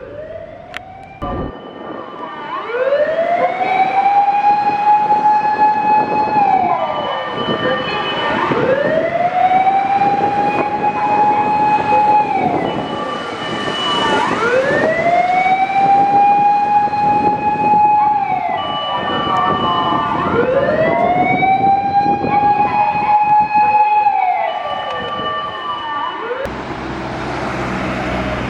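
Japanese fire engine siren wailing in slow cycles: four times the pitch rises, holds high for a few seconds, then falls away. A different, noisier sound takes over near the end.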